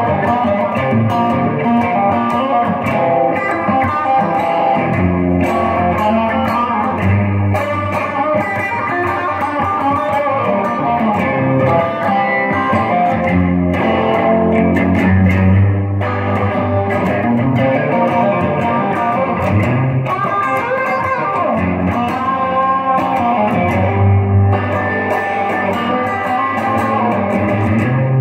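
Sunburst Stratocaster-style electric guitar played continuously, a stream of picked notes and chords with strong low notes.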